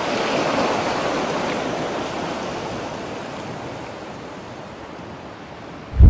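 Ocean surf: a wave washes in, swells and slowly fades away. A sudden deep, low thump comes right at the end.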